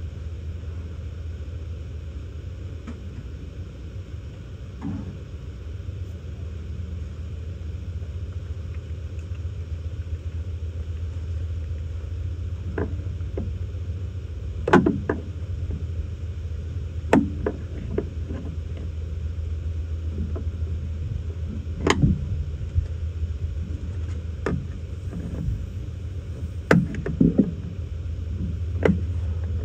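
Sharp knocks and clanks of hand tools and metal and plastic parts being handled while trim is taken off a semi truck to reach its heater core, scattered through the second half, over a steady low rumble.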